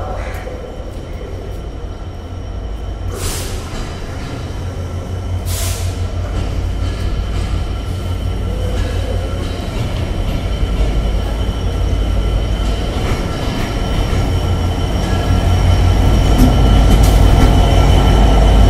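Diesel-hauled passenger train pulling in alongside the platform: a deep rumble grows steadily louder until it is loudest as the locomotive passes close by near the end. Over it run a steady high-pitched wheel squeal and two short bursts of hiss in the first six seconds.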